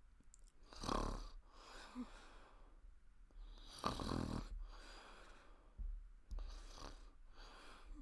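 A woman snoring through an open mouth as she naps sitting up, a rasping throat snore. About three breaths are heard, each a louder snore followed by a softer one.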